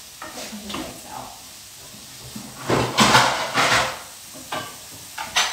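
Kitchen cupboard doors opening and closing while plates are got out, with a burst of knocking and clatter about three seconds in and a sharp click near the end.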